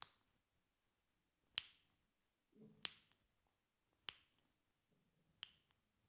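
A masseur's finger snaps: five sharp snaps, evenly spaced about one and a quarter seconds apart.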